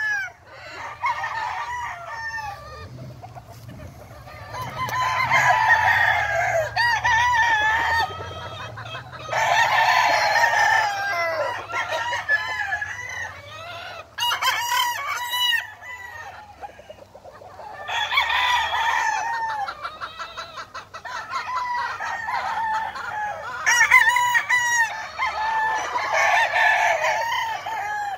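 Gamefowl roosters crowing, several long crows of two to three seconds each one after another, with hens clucking in between.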